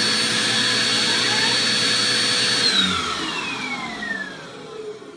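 Vacuum cleaner motor running with a steady high whine. About two and a half seconds in it is switched off, and the whine falls in pitch and fades as the motor spins down.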